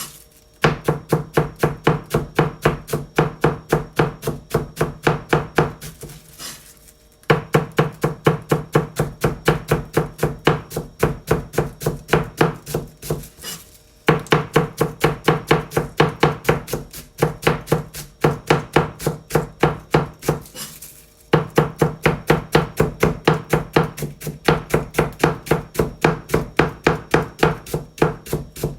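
Kitchen knife finely shredding cabbage on a cutting board: a fast, even rhythm of chopping strokes, several a second, broken three times by brief pauses.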